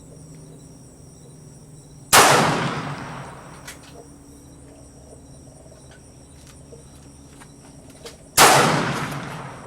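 Two rifle shots about six seconds apart, each a sharp crack followed by a long echoing decay. A few faint clicks come in between.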